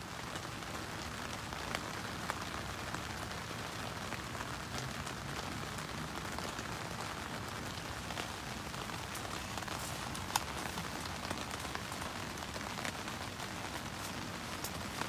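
Steady rain falling, with scattered drops ticking close by and one sharper tick about ten seconds in.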